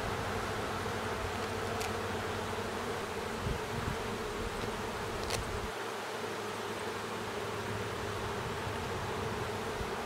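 Many honey bees buzzing in a steady hum around an open nuc hive, stirred up after being shaken off their brood frames.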